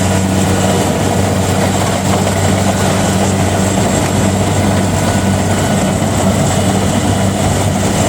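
An engine-driven machine running steadily at constant speed, with a low, even hum.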